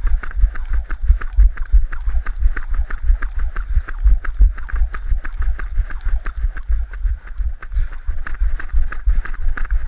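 A jump rope slapping asphalt in a steady rhythm, with a low thump from each landing.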